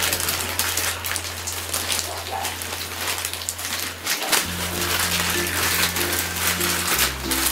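Crinkling and rustling of a plastic mailer bag being opened by hand, over background music with slow held bass notes.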